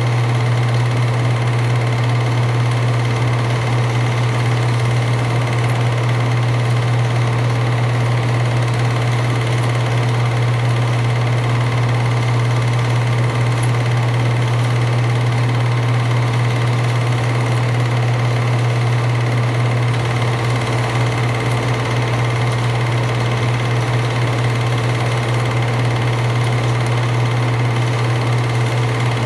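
Steady hum and whir of an 8mm film projector running.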